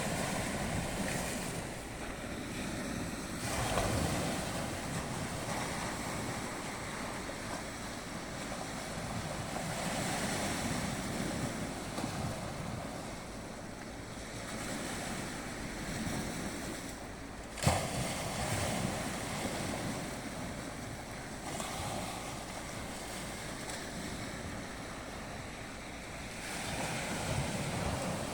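Sea waves washing in and breaking, swelling and easing every few seconds. A single sharp knock comes about two-thirds of the way through.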